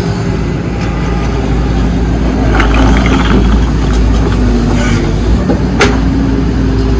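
Excavator's diesel engine running steadily, with a patch of metallic rattling about halfway through and a single sharp clank near the end.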